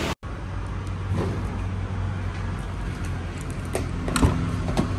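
A steady low hum, with a few sharp clicks near the end, the loudest about four seconds in: a car door's latch and handle being worked as the door is opened.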